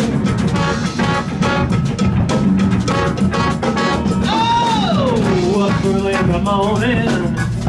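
A live band with a horn section of saxophones and trombone, electric guitars, bass and drum kit playing a steady-beat number. About four seconds in, a long falling pitch slide sounds over the beat, followed by shorter wavering melodic lines.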